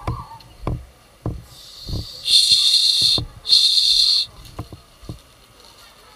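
Footsteps walking on paving, a dull step every half second or so. About two seconds in come two loud bursts of hissing, each under a second long, with a short gap between them.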